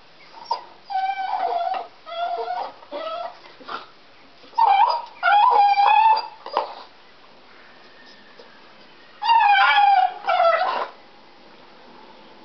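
A deaf dog crying and whining in repeated high-pitched bursts while biting on a wooden stick, with a quiet pause of about two seconds partway through.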